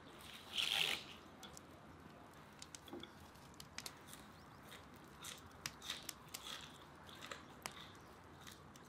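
A person bites into a crisp stalk of fresh green onion, one loud crunch about half a second in, then chews with small scattered crunches and clicks.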